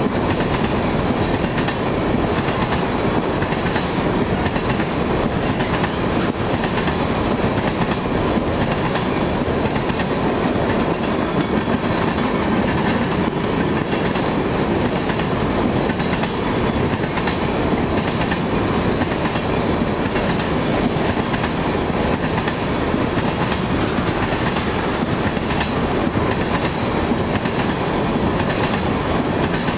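Freight train rolling past a grade crossing: a steady, loud noise of wheels on rail that does not let up.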